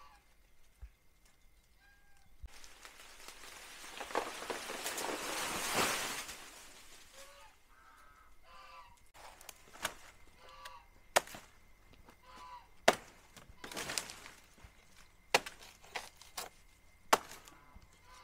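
A rushing, rustling noise that swells for about four seconds and dies away, then about seven sharp chopping strikes at uneven intervals from a hand blade cutting into banana plant.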